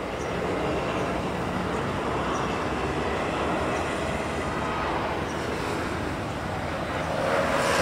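Steady rumble of vehicle engine noise, growing louder about seven seconds in.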